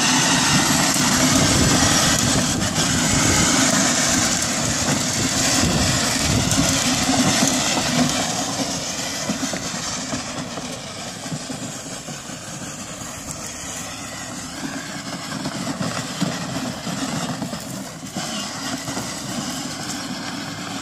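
Electric three-wheel toy ride-on motorcycle driving along: a steady, noisy rumble of its small motor and plastic wheels, louder for the first eight seconds or so and then quieter.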